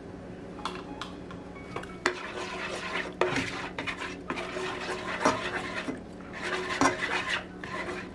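A silicone spatula stirring stock into lemon-butter sauce in a skillet, scraping and knocking irregularly against the pan from about two seconds in.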